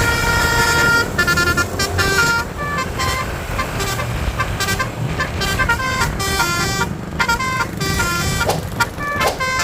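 Basuri telolet multi-tone bus horn playing a fast melody of short notes in quick runs, with a low engine and road rumble underneath.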